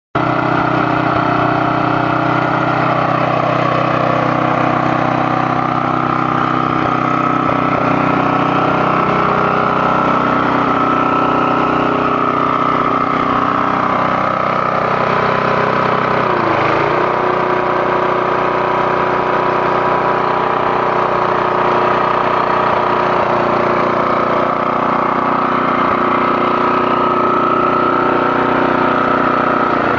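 Atco B17 cylinder lawnmower's small petrol engine running steadily, with a brief dip in engine speed about halfway through.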